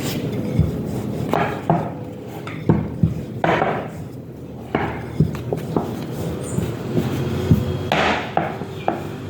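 Kitchen utensils knocking and scraping at irregular intervals, with several sharp knocks and a few short scrapes.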